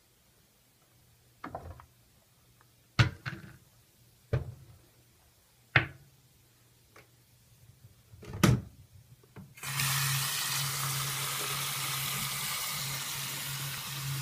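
Hard plastic bottles and caps knocking and clacking on a bathroom countertop, a handful of sharp knocks. About two-thirds of the way through a faucet comes on and water runs steadily into the sink.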